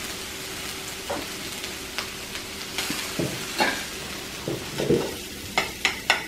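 Meat and vegetables sizzling in butter on a tabletop grill, a steady hiss with scattered sharp clicks that come more often near the end.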